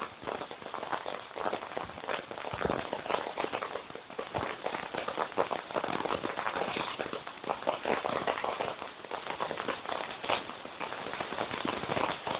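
Bauxite ore and stones tumbling inside a rotating trommel washing drum: a dense, irregular clatter of many small knocks and crackles that keeps on without a break.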